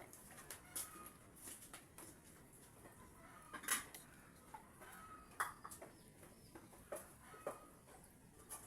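Faint, scattered clinks and knocks of kitchen utensils and dishes, with a few short faint clucks from chickens behind them.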